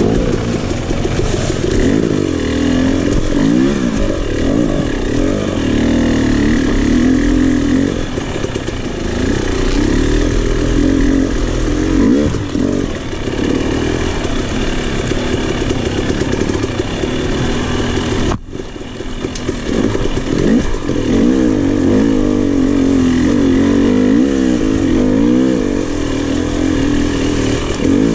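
KTM 300 XC two-stroke dirt bike engine being ridden on trail, the revs rising and falling constantly with the throttle, with a brief break in the sound about two-thirds of the way through.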